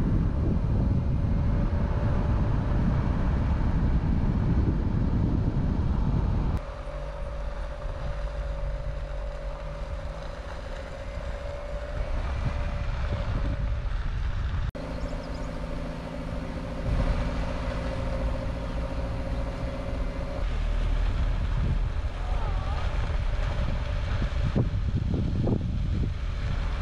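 A car driving along a road: steady engine and road rumble, with a faint held hum. The sound changes abruptly three times, where separate stretches of driving are joined.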